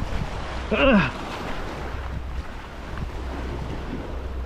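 Wind buffeting the microphone over the wash of waves on the rocks, a steady rumble and hiss, with one brief vocal exclamation about a second in.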